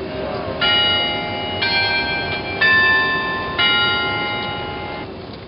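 Four bell chime notes struck about a second apart, each ringing on over the last, the ringing cutting off about five seconds in.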